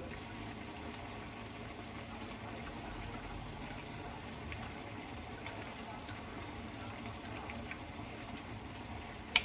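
Steady water sound in a kitchen, with a few faint clicks and one sharp click near the end.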